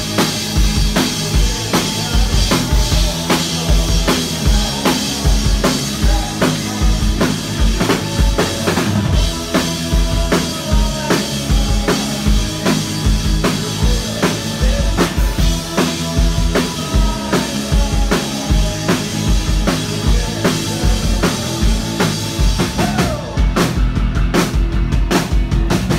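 Rock band playing live and loud through a club PA: a drum kit driving a steady kick-drum beat with snare and cymbals, under electric bass and electric guitar.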